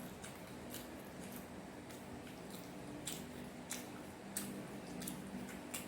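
Chewing and mouth sounds of eating fast food: soft irregular wet clicks every half second to second, over a steady low hum.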